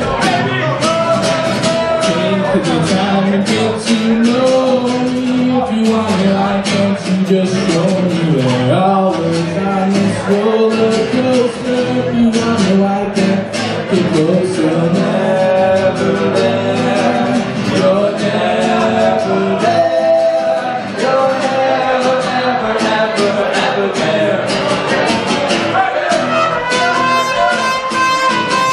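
Live band playing: a drum kit with steady cymbal strokes, acoustic guitar and electric bass under a male voice singing. Near the end a trumpet comes in with held notes.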